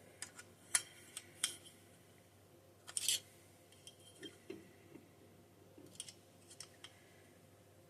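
Small metal pick clicking and scraping against a Holley carburetor fuel bowl in scattered light taps, with a longer scrape about three seconds in, as a stuck part is worked loose.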